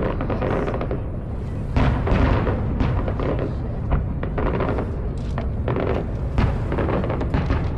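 Fireworks going off in a rapid, irregular string of bangs and booms over a constant low rumble, with the loudest bursts about two seconds in and again near six and a half seconds.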